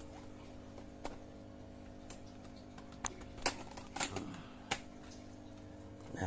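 A handful of light, sharp clicks and taps from hands handling the hard plastic folding storage box, irregularly spaced, over a faint steady hum.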